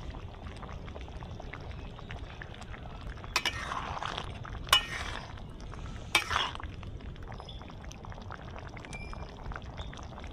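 A metal ladle stirring a simmering curry in a metal kadai. It clinks sharply against the pan about three times in the middle, over the low steady bubbling of the pot.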